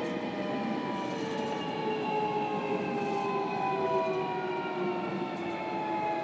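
JR Kyushu 305 series EMU's Toshiba permanent-magnet-motor VVVF inverter and traction motors whining as the train slows, several tones falling slowly together in pitch over the rumble of wheels on rail, heard from inside the motor car.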